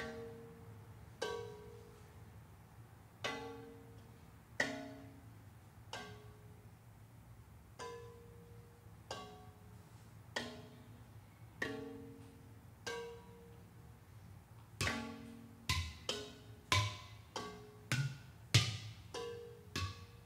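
Hand-thrown ceramic bowls struck one at a time, each giving a short ringing, pitched clay tone, about a second or two apart. About fifteen seconds in the strikes grow louder and quicker, joined by deep hollow thumps from udu-style clay pot drums played by hand.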